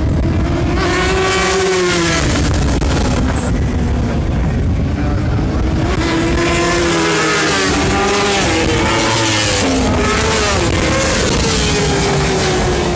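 Racing motorcycles at full throttle on a closed road course, several engine notes overlapping and rising and falling in pitch as the bikes come through and pass.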